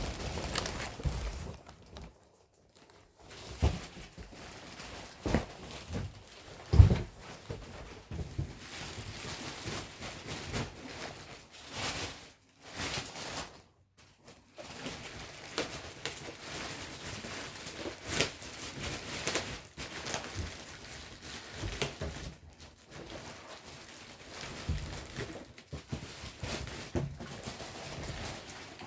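Packaging being handled during unboxing: irregular rustling and crinkling with scattered knocks, and one heavy thump about seven seconds in.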